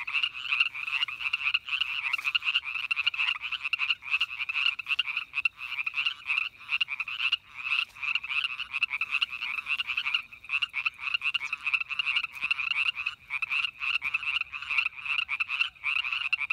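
A chorus of many frogs calling at once from a pond, dense and unbroken, with countless overlapping calls.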